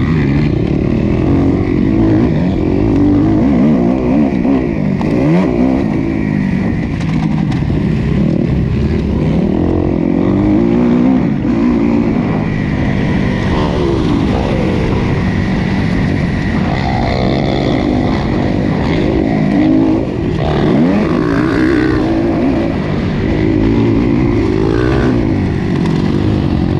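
Motocross bike engine, heard from on board, revving hard up and down through the gears as it is raced around a dirt track, the pitch rising and falling again and again, with other bikes' engines close by.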